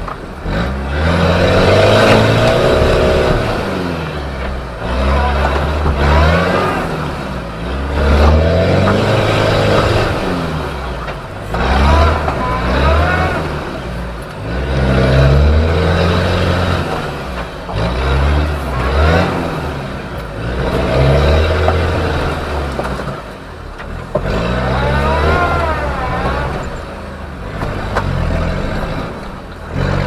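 Off-road 4x4's engine revving hard and easing off over and over, a surge about every two to three seconds as the wheels work through mud and water.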